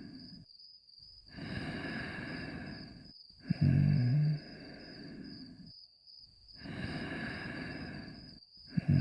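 Snoring in deep sleep: a loud, low snore about a third of the way in and again at the end, with softer breathy breaths and short pauses between, repeating about every five seconds.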